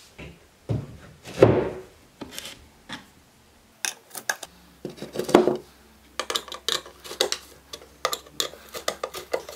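A particleboard panel is knocked onto its cam pins. A flathead screwdriver then turns metal cam locks, making a run of quick clicks and scrapes in the second half as the cams tighten onto the pins.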